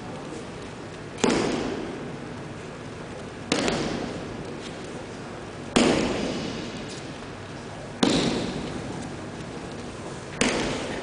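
An aikido partner's breakfalls slapping onto tatami mats as he is thrown, five sharp impacts a little over two seconds apart, each echoing in a large hall.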